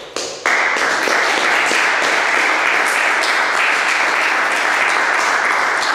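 Audience applauding: a couple of first claps, then steady, dense applause from about half a second in.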